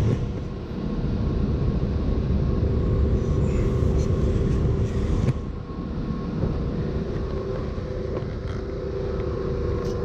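Steady hum and low rumble of running HVAC equipment, with a couple of short knocks from handling the open cabinet about four and five seconds in.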